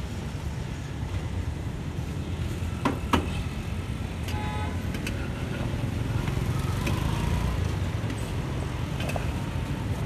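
Steady low rumble of road traffic, with two sharp clicks about three seconds in and a brief high tone about a second and a half later.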